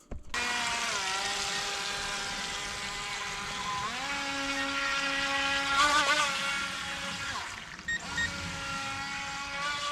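DEERC H120 RC speedboat's electric motor whining as it runs on the water, its pitch stepping up about a second in and again about four seconds in, and dropping briefly near eight seconds as the throttle changes, over a steady hiss.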